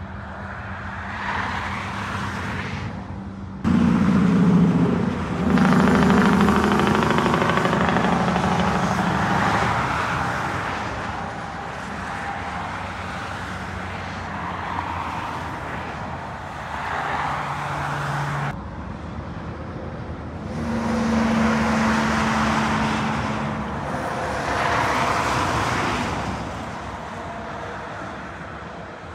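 Heavy trucks passing on a motorway: engine tones and tyre noise swell and fade as each one goes by, loudest from about four to ten seconds in. The sound changes abruptly twice, about three and a half seconds and eighteen seconds in.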